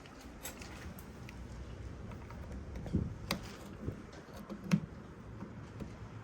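Scattered light clicks and taps of hands working the pickup's door-handle hardware, with a sharper knock about three seconds in and the loudest click just before the five-second mark.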